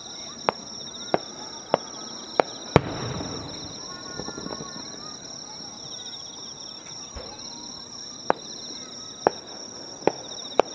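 Fireworks shells going off, with sharp bangs: five in the first three seconds, the loudest followed by a rolling echo, then a pause and four more near the end. Insects keep up a steady high chirring underneath.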